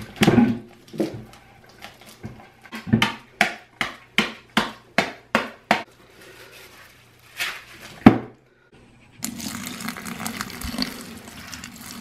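A run of sharp crinkles and knocks, about two a second, as a compressed coconut-fiber substrate brick is handled out of its plastic wrapper over a plastic tank. After a short silence, water pours steadily onto the brick inside the tank to soak it.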